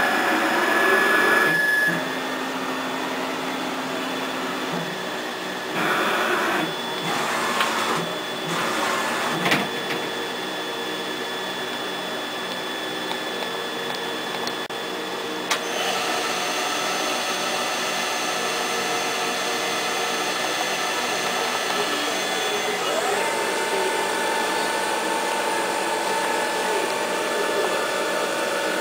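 Bridgeport VMC 600 CNC vertical machining centre running: a steady mechanical hum with several whining tones from its spindle and axis drives. There are a few louder noisy spells and a couple of sharp clicks in the first half, and about three quarters of the way through one whine rises in pitch and holds at the higher note.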